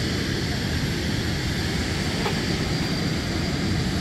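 Steady aircraft engine noise across an airfield, with a faint high whine held throughout.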